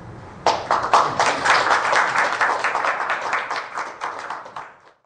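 Audience applause at the end of a talk: many people clapping, starting about half a second in, slowly dying away and fading out just before the end.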